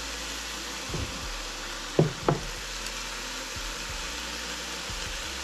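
Eggplant and minced pork frying in a pan with a steady sizzle; two sharp knocks close together about two seconds in, with a lighter one about a second in.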